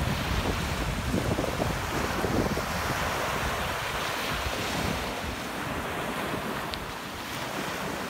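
Small sea waves breaking and washing up a sandy beach in a steady hiss of surf, with wind buffeting the microphone, mostly in the first few seconds.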